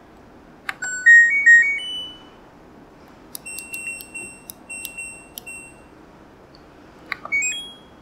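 LG washer-dryer control panel: a button click and a short electronic melody about a second in, then a run of short beeps as the programme dial is turned, and another short tune near the end.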